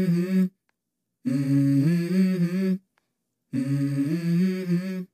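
A hummed vocal melody, used as an intro jingle: three short phrases of held, stepping notes, each broken off by complete silence.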